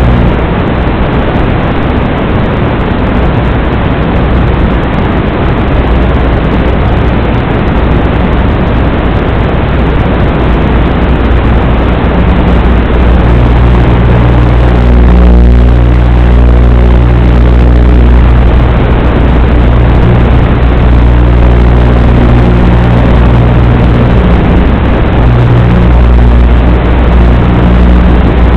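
Small FPV quadcopter's electric motors and propellers running in flight, a steady loud buzzing hum with a rushing noise over it. About halfway through the hum becomes clearer and dips in pitch briefly before steadying.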